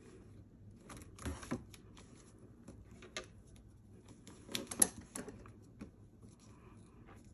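Scattered light clicks and taps of a clear acrylic quilting ruler being set down and shifted on folded fabric. The sharpest click comes a little past the middle.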